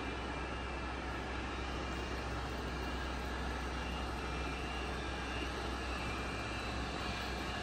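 TOS-Kuřim FNK 25A vertical turret milling machine's spindle running steadily at 1800 rpm: an even low hum with a hiss and no knocking or whine, the sign of a spindle in good working order.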